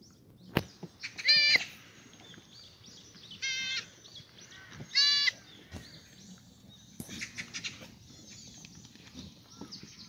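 Goats bleating: three loud, high, quavering bleats in the first half, about two seconds apart. A sharp knock comes just before the first.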